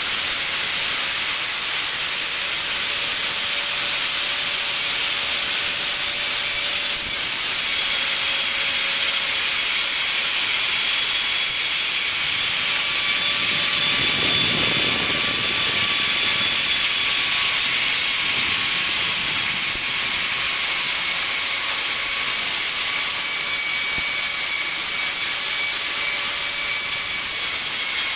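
High-speed CNC router spindle running steadily: a loud, even hiss with a faint high whine, with a brief lower rush swelling up about halfway through.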